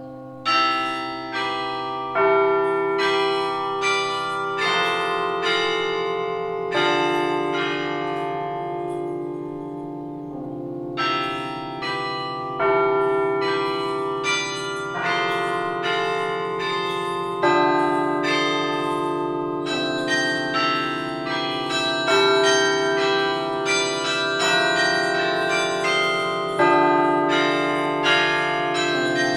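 Tower carillon bells playing a melody from the baton keyboard. Each struck note rings on over held low bells, with a short lull about ten seconds in before the tune picks up again.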